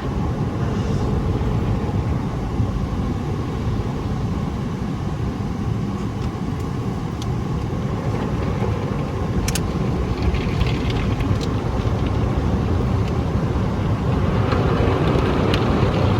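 Automatic tunnel car wash working over the car, heard from inside the cabin: a steady rumbling wash of spray and machinery, with a few sharp knocks about nine and a half seconds in, growing louder near the end.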